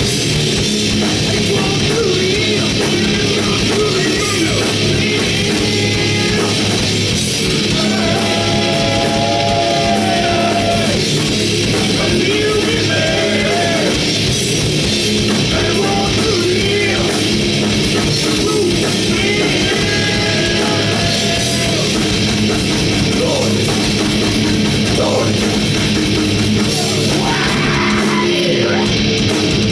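A heavy metal band playing live and loud: distorted electric guitars, bass and drums, with a singer's voice over them.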